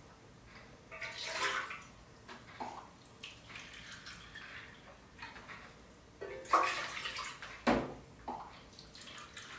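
Warm water poured from a stainless steel kettle into a small plastic measuring cup in a few short pours. There is a sharp knock near the end.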